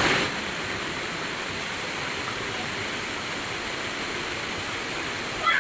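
Steady rushing of water falling over a stream waterfall.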